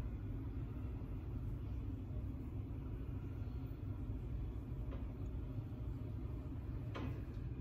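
Steady low background rumble, with a faint click about seven seconds in.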